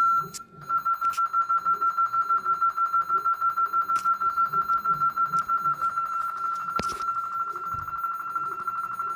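Honeywell Vista 20P alarm system sounding: a single high tone pulsing rapidly, several times a second, after a short break right at the start.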